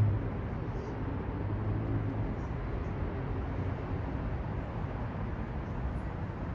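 Steady city traffic noise from passing vehicles, with a low engine hum that swells at the start and again about two seconds in.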